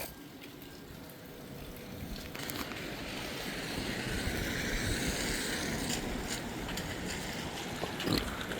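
Rushing tyre hiss of traffic on a rain-wet road, swelling about two seconds in and easing off near the end.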